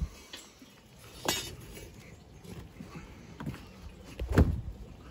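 Two sharp knocks, about a second in and a louder one near the end with a dull thud under it, as things are shifted about by hand.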